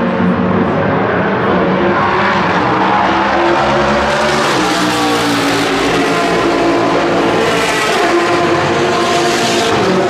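NASCAR Next Gen Chevrolet Camaro ZL1's V8 race engine at full, steady volume, its note rising and falling as it drives through the corner, with a second GT race car running close behind.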